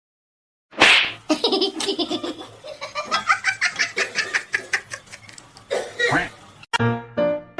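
A person laughing hard in a long run of quick, high-pitched bursts, starting suddenly about a second in. Piano music comes in near the end.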